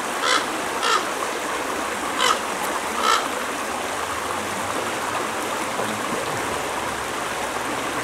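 Shallow creek running over rocks in a steady rush of water, with a few short bird calls in the first three seconds.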